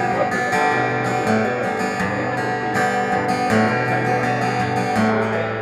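Acoustic guitar strummed in a steady rhythm, chords ringing between vocal lines of a live song.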